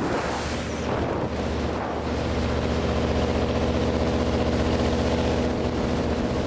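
Jet boat engine running steadily under way, its pitch holding level.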